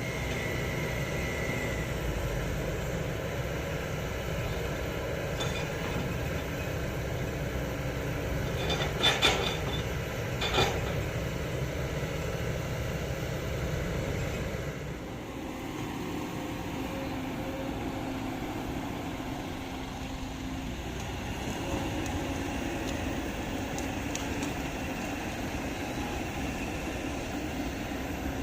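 Excavator's diesel engine running steadily, with two or three sharp knocks a little over halfway into the first half; the low rumble eases about halfway through.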